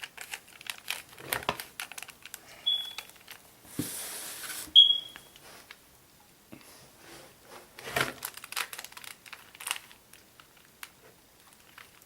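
Plastic Rubik's Cube being twisted quickly, its layers turning with irregular clicks and clacks. A hiss lasts about a second midway, and two short high pings sound, the second one the loudest.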